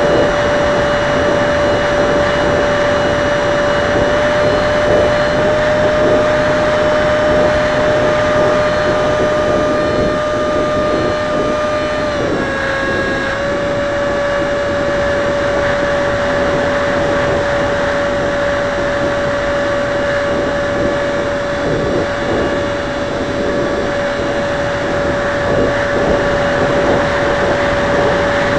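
Electric ducted fan of a 50mm EDF model jet whining at a near-constant pitch over a steady hiss, heard from on board the plane. The pitch dips slightly about twelve seconds in, then holds.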